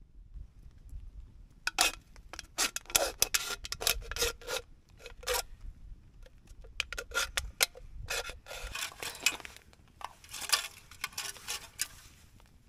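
Irregular scraping and rubbing sounds: clusters of short, sharp strokes starting about two seconds in, with two longer rasping stretches in the second half, stopping shortly before the end.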